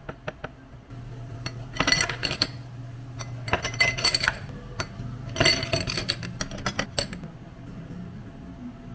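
Glassware clinking and ringing in three quick clusters, over a steady low hum.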